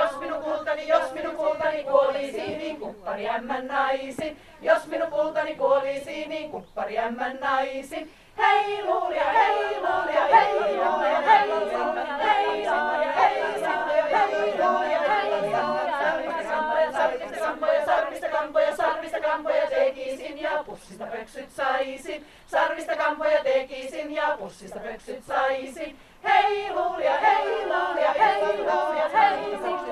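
Small women's folk choir singing a Finnish folk song a cappella, with short pauses between phrases.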